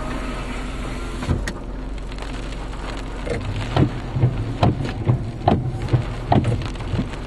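Wind-driven rain in a tornado's rain wrap, heard from inside the chase vehicle: a steady rush, then from about three and a half seconds in, heavy drops pelting the roof and windshield in irregular knocks.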